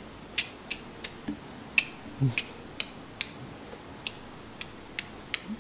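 A series of light, sharp clicks at irregular spacing, about two to three a second.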